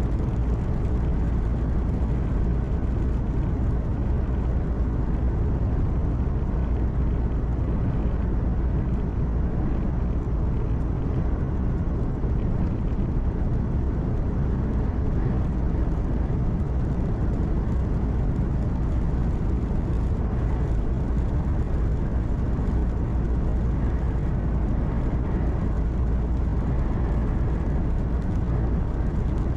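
Truck running at steady road speed, heard from inside the cab: a constant low engine hum under tyre and wind noise, with no change.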